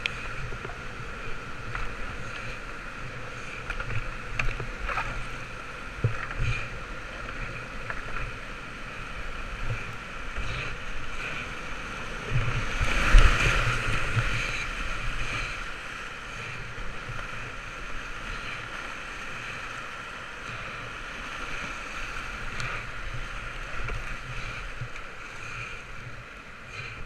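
Whitewater rushing steadily around a creek kayak, heard close from the kayaker's own action camera, with scattered short knocks. The rush swells louder for a couple of seconds about halfway through.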